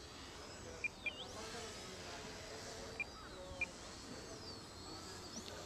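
Tiny micro-drone motors whining high, their pitch swooping up and down as they hold a hover against the wind, with four short electronic beeps, two about a second in and two about three seconds in.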